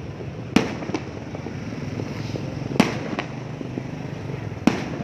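Fireworks going off: three sharp bangs about two seconds apart, with fainter pops and crackles between them over a steady low rumble.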